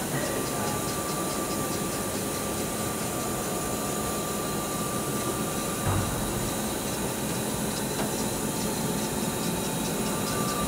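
Hurco VM1 CNC vertical machining centre running with its table traversing: a steady machine hum with a thin whine over it. The whine stops with a short knock about six seconds in and comes back near the end.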